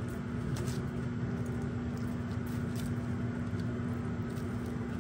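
Steady low hum and rumble of a running machine, holding one constant low tone throughout. A few faint clicks of a metal fork on aluminium foil.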